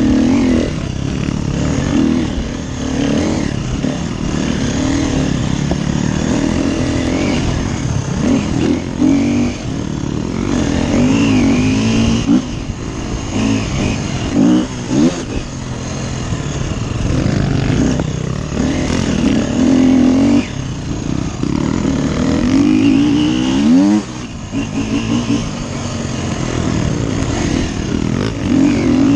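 Off-road dirt bike engine, ridden hard, revving up and dropping back again and again as the rider works the throttle and gears.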